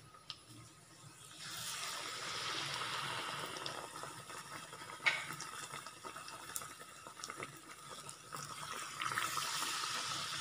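Hot oil sizzling and bubbling around a battered plantain fritter (pazham pori) deep-frying in a kadai. The sizzle swells about a second and a half in and holds steady, with a sharp click about five seconds in.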